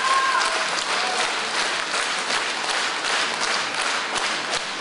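Concert hall audience applauding, a dense steady clapping after a performance.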